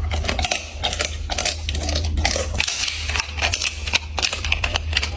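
A dog chewing and crunching food, a rapid, irregular run of small crunching clicks over a steady low hum.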